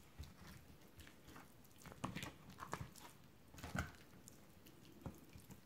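Faint wet handling sounds of hands rubbing salt into a raw, scored gourami fish on a wooden cutting board, with a few soft knocks and squelches as the fish is turned over.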